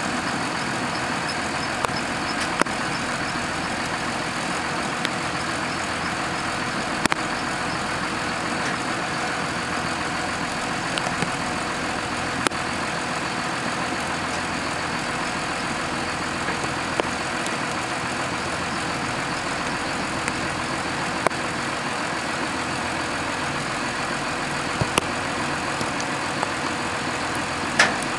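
John Deere tractors' diesel engines running steadily at low revs, with a few short sharp clicks, one louder near the end.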